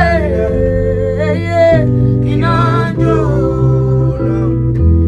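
Singing voices over a backing beat, with held bass and chord notes that change every second or so.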